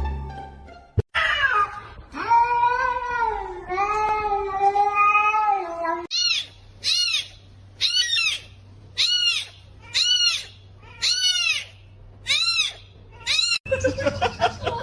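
A cat yowling in two long calls, the second held for several seconds with a wavering pitch. After a cut, a cat meows about a dozen times in quick succession, each meow high and rising then falling in pitch.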